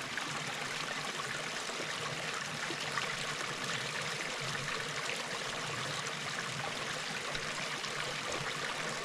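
Mountain stream rushing over rocks: a steady, even sound of running water.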